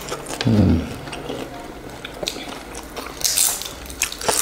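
Close-up eating sounds of chicken wings and sticky rice: wet chewing and biting with mouth clicks, a brief low 'mm' about half a second in, and a sharper crackle a little after three seconds.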